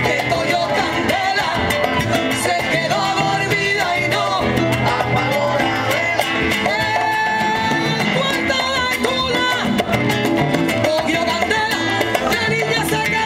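Live salsa band playing, with congas, bass, guitar and keyboard under a singer's voice.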